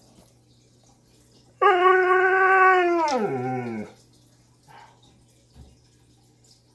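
Husky giving one long howl-like 'talking' call lasting about two seconds. It starts suddenly at a steady pitch and drops in pitch as it trails off.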